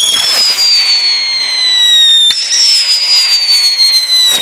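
UFO flying-spinner fireworks whistling: a loud, high whistle that slowly falls in pitch. About two seconds in, a sharp crack cuts it off, and a new whistle starts high and falls again.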